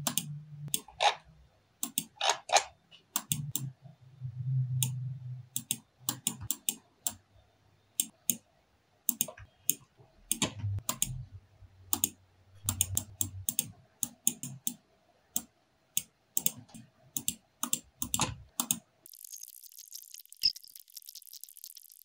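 Keys tapping on a backlit laptop keyboard and mouse buttons clicking, in short irregular runs. Near the end the clicking stops and a faint high hiss takes over.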